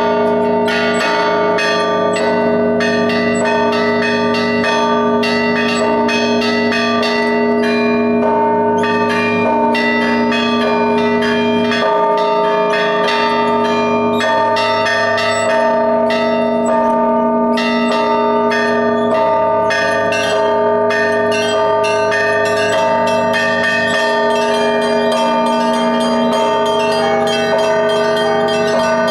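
Russian Orthodox church bells rung by a single bell ringer in an Easter peal. The small bells are struck in quick rhythmic patterns over the steady ringing of deeper bells, whose notes change every several seconds.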